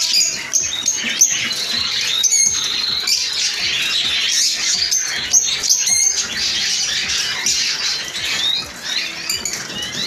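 Many caged canaries chirping and singing at once in a dense chorus of high twitters and trills, with a few sharp clicks in between.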